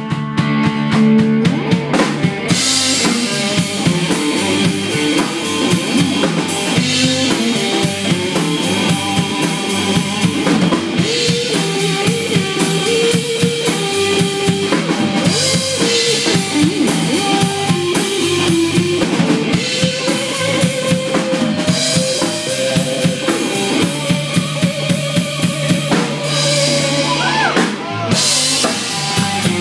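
Live electric guitar lead with bent notes played over a full rock drum kit: loud instrumental blues-rock.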